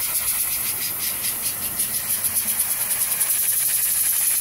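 Compressed air blasting from an air compressor's blow nozzle onto a fidget spinner: a steady, loud hiss with a rapid flutter running through it as the spinner whirls in the air jet.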